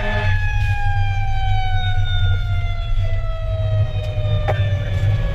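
Fire engine siren winding down in one long, slowly falling tone, over the truck's steady low engine rumble. A sharp click sounds about four and a half seconds in.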